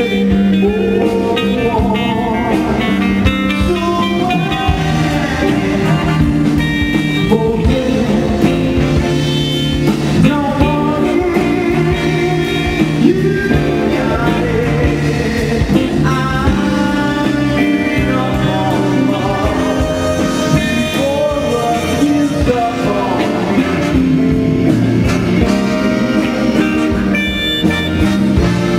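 Live soul band playing a slow song: electric guitar, bass and keyboards with a horn section under a sung lead vocal.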